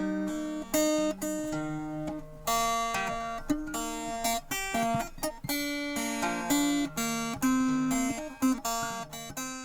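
Acoustic guitar playing an instrumental passage without voice: notes and chords plucked every half second or so and left to ring.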